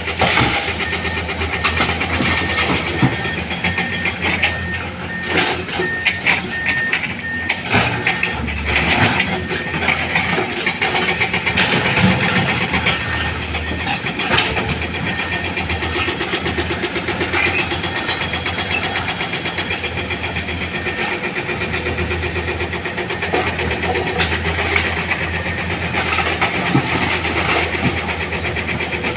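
Heavy diesel machinery of an excavator and dump truck running steadily, with irregular clanks and knocks, thickest a few seconds in, as stone is loaded.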